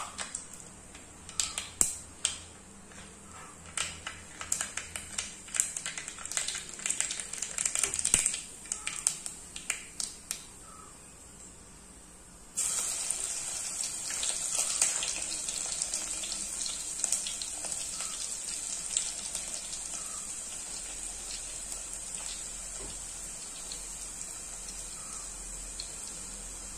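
Mustard seeds popping in hot oil in a clay pot: many sharp pops at first, thinning out and dying away after about ten seconds. About halfway through, chopped garlic goes in and the oil starts to sizzle steadily.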